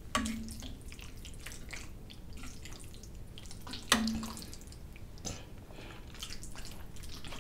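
A fork clinking and scraping on a serving dish while it twirls sauce-coated Alfredo noodles, with small wet, sticky clicks from the pasta. There are two sharper clinks, one at the start and a louder one about four seconds in.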